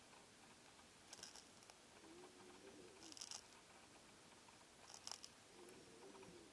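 Sought-after false hadra snail (Euhadra quaesita) rasping the surface of a Schizophragma leaf with its radula while feeding: faint, crackly scrapes that come three times, about two seconds apart.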